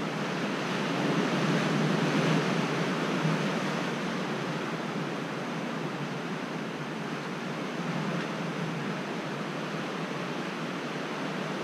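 Steady wash of ocean surf, swelling slightly a second or two in and then easing back.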